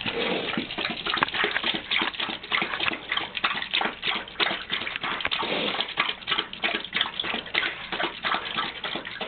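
A dog wolfing down its food from a bowl, the food softened with added water: a fast, irregular run of wet chomping and slurping.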